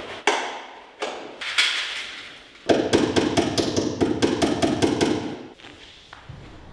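Small hammer tapping pins into a wall to hang large paper sheets: a few single taps, then a quick run of light taps lasting a couple of seconds that fades out near the end.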